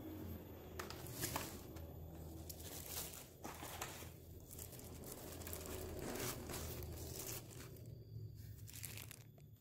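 Plastic packaging wrap crinkling and rustling in irregular handfuls as a new keyboard and mouse are unwrapped, with sharp crackles throughout; it dies down about nine seconds in.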